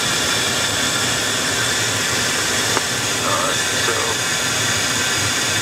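Steady in-flight cockpit noise of an HU-25C Falcon jet: a constant rush with a steady high whine from its twin turbofan engines and airflow. A faint, muffled voice comes through briefly about three seconds in.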